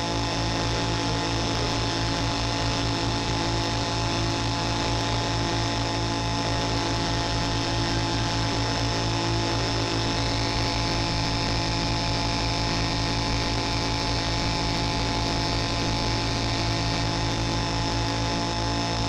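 Homemade square-wave synthesizers built on 40106 oscillator chips playing a buzzing drone: several held pitches over a fast low pulsing, with a faint rising glide in the higher tones about halfway through.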